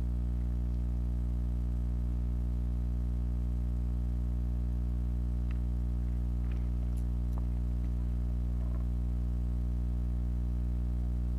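Steady low hum made of several even tones stacked one above another, with a few faint clicks in the middle.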